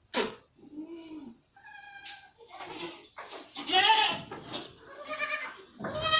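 Goats bleating: a run of separate calls one after another, some steady and some wavering, the loudest about four seconds in and near the end.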